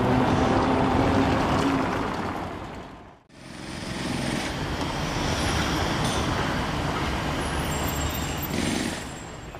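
Road traffic noise: a steady rushing of passing vehicles with no single one standing out. It drops away briefly about three seconds in and returns at much the same level.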